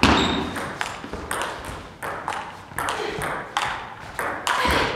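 Table tennis rally: the ball clicking sharply off the bats and the table in a quick, uneven run of hits, about two or three a second.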